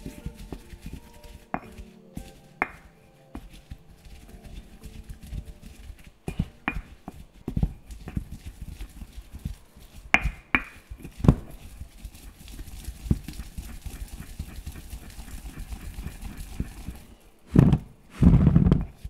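Pestle pounding and grinding in a mortar: an irregular run of knocks and dull thuds, loudest in two longer bursts near the end.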